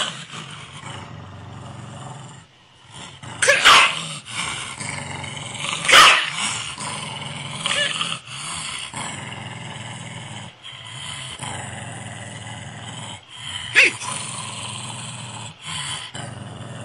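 Corgi growling and grumbling continuously, a low vocal rumble broken by about four short, sharp yips.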